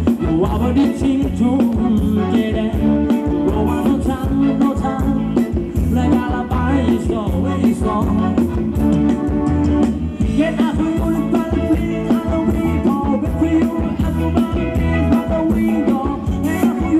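A live band plays upbeat Thai ramwong dance music over stage loudspeakers, with a singer, bass and a steady drum beat.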